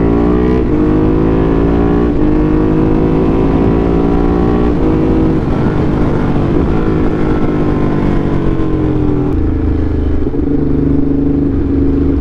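Motorcycle engine pulling under acceleration, its pitch rising steadily, stepping down at a gear change about five seconds in and again near nine seconds, then holding steady, over a low rumble of wind.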